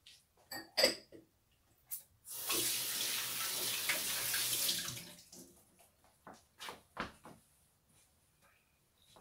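Kitchen tap running into a sink for about two and a half seconds, starting about two seconds in. A few sharp knocks come before it, the loudest about a second in, and light clicks follow it.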